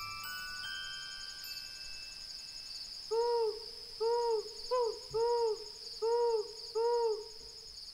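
An owl hooting about six times, each hoot a short note that rises and falls in pitch, over a steady background of crickets chirping. A short run of soft rising notes sounds in the first couple of seconds.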